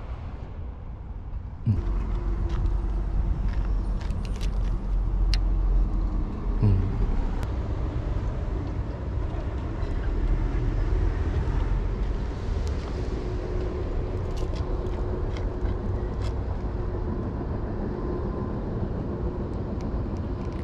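Steady rumble of road traffic with a low engine hum, starting abruptly about two seconds in, with a few faint clicks over it.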